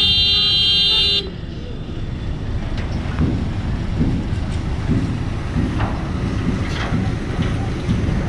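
A vehicle horn held, cutting off abruptly about a second in, over a steady low rumble of engines among the waiting vehicles.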